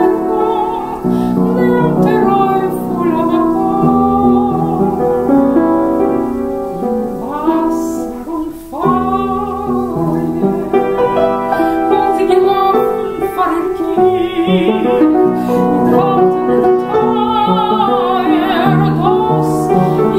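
A woman singing a ballad with vibrato on long held notes, accompanied by piano chords.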